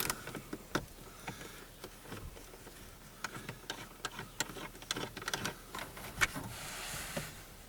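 Socket ratchet clicking in short, irregular runs as dash trim screws are backed out with a 7mm socket, with a short scraping rustle near the end.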